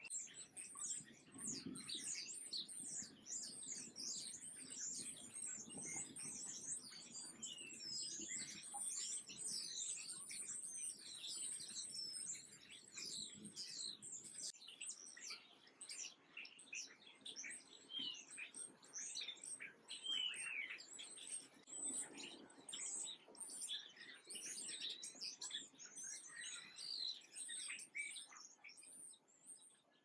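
Many small songbirds chirping together in a dense, continuous chorus of short high chirps and quick down-sweeping notes.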